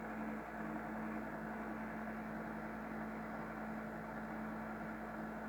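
Steady hum with one constant low tone and a soft, even hiss beneath it, unchanging throughout.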